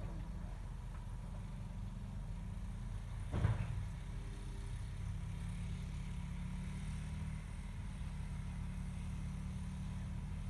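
Small dirt bike engine running steadily at a distance, heard as a low rumble, with one brief louder burst of noise about three and a half seconds in.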